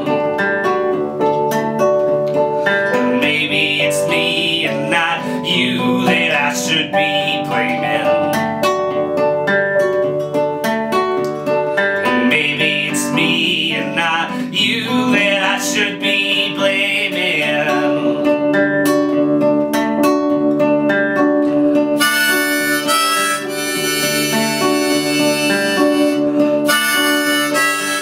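Acoustic folk-blues duo: nylon-string guitar strummed under keyboard chords, with a man singing through the first half and a neck-rack harmonica taking over for the last several seconds.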